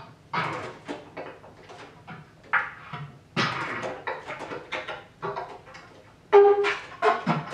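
Solo bass clarinet played with extended techniques: irregular short, noisy bursts of air and tone rather than a melody, with a few brief pitched notes near the end.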